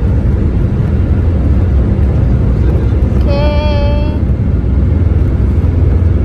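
Cabin of a Boeing 787-8 on its takeoff roll: a loud, steady low rumble of the jet engines and the wheels on the runway, heard from a window seat over the wing. About three seconds in, a brief high-pitched wavering tone sounds for about a second over the rumble.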